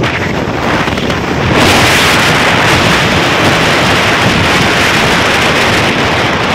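Loud, steady rushing of wind and heavy rain against a moving vehicle, with road noise on a wet highway; the rushing grows louder about a second and a half in.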